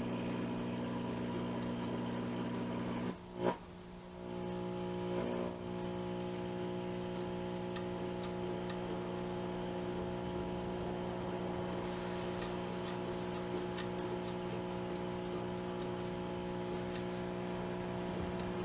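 Hallicrafters S-120 shortwave receiver's speaker putting out a steady hum made of several stacked tones over a light hiss, with a short crackle about three and a half seconds in. The hum is the mark of a bad filter capacitor, which the owner blames for the poor performance.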